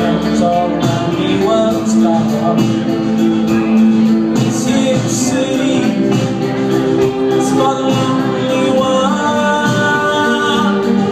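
Live rock band playing: a male lead singer over electric guitars and drums with a steady beat, heard from the audience in a concert hall.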